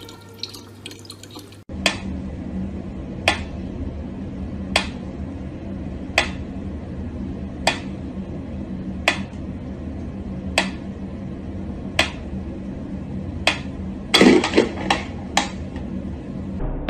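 Mechanical pendulum metronome ticking slowly, one sharp click about every one and a half seconds, over a low steady hum. Near the end comes a quick flurry of louder clicks and knocks. In the opening second or so, a thin stream of tap water runs and then cuts off.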